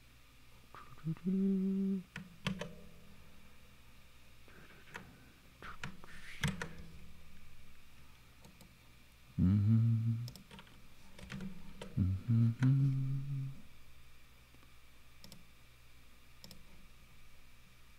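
A man humming a few short low notes under his breath in three spells, with scattered soft computer mouse and keyboard clicks between them as he works in a web browser.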